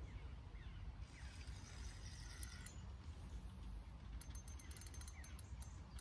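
Fishing reel on a feeder rod being worked while a hooked barbel is played, with a quick run of clicks about four seconds in, over a steady low rumble.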